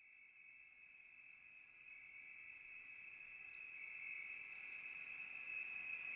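Crickets trilling: a faint, steady, high-pitched chirring that slowly grows louder.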